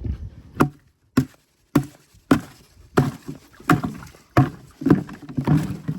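Footsteps on frozen ground, a steady walking rhythm of one knock-like step about every two-thirds of a second.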